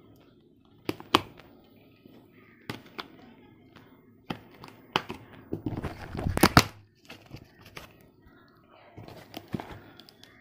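Plastic courier packaging being pulled, crinkled and torn open by hand, in sharp snaps and rustles, with a longer, louder rip about six seconds in; the wrap is hard to tear.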